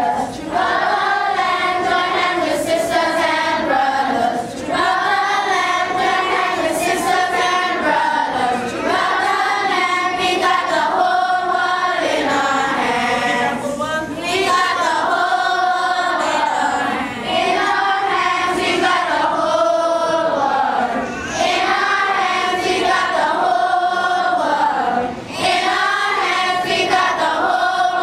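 Children's and youth choir singing together, one continuous song with only short breaths between phrases.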